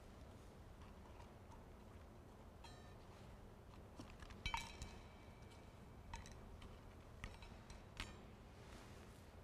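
Altar vessels being handled and set down: about six light clinks and taps, some with a short ring, the loudest about four and a half seconds in, over near-silent church room tone.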